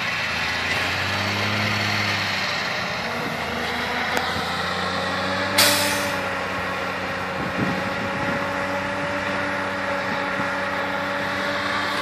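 Engine of a V-plow snow-plow truck running steadily as it pushes through deep snowbanks, with one short, loud hiss about five and a half seconds in.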